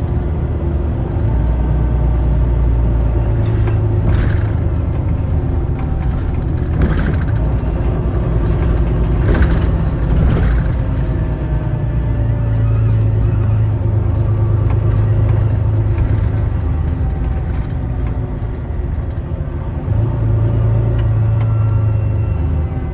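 City bus heard from inside the cabin while driving: a steady low engine and road rumble that swells and eases, with a few sharp knocks or rattles.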